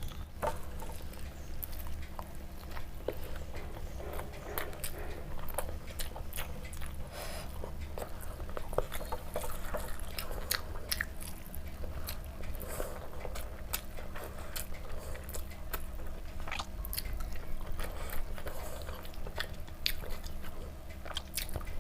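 Close-up mouth sounds of a person eating a Bengali meal of rice, dal, dheki shak greens and boal fish: chewing, wet smacks and frequent sharp mouth clicks throughout. A steady low hum runs underneath.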